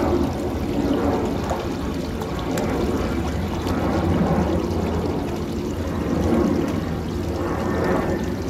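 Water pouring steadily into a koi pond from a small waterfall inlet, splashing onto the surface.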